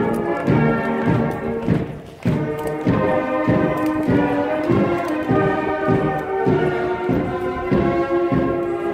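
A band playing a march: held brass notes over a steady bass drum beat, about two beats a second, with a short break about two seconds in.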